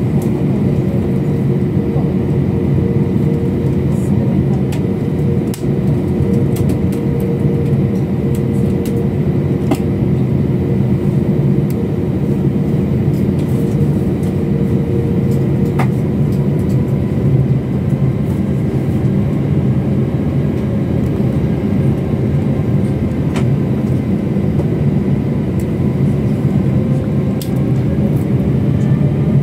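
Airliner engines running, heard from inside the passenger cabin as a steady loud rumble with a constant hum. Near the end a whine starts to rise in pitch.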